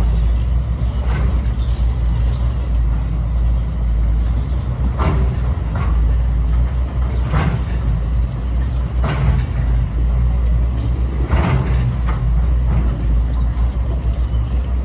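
Construction machinery running with a steady low engine drone, with a short surge reaching higher every couple of seconds as the machines work.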